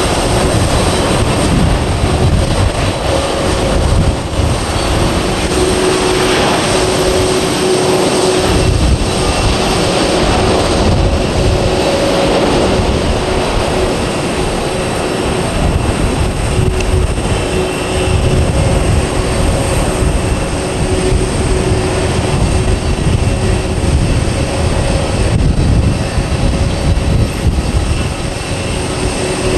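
Airbus A330-900's twin Rolls-Royce Trent 7000 turbofans at takeoff thrust, a loud, steady jet noise with a deep rumble and a faint steady hum on top, as the airliner finishes its takeoff roll, lifts off and climbs away.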